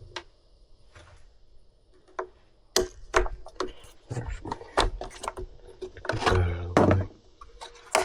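Clicks, knocks and rattles of the plastic housing of a Stihl BG 65C leaf blower being handled while its side screws are taken out, with a rougher stretch of scraping and rattling near the end.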